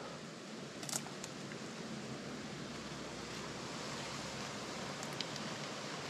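Steady, even hiss of outdoor ambience in the woods, with a small click about a second in.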